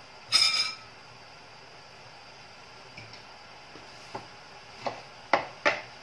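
Kitchen utensils and dishes clattering. A loud, ringing clatter comes about half a second in, then a few light knocks, the last two sharp and close together near the end.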